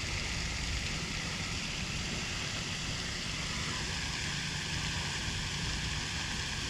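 Steady rushing background noise with no clear events, and a faint thin whine that joins a little past halfway.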